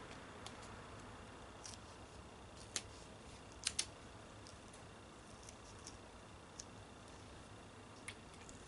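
Faint, scattered clicks and crackles of duct tape being pressed and smoothed onto the edge of a window screen's mesh, the loudest a quick pair a little under four seconds in.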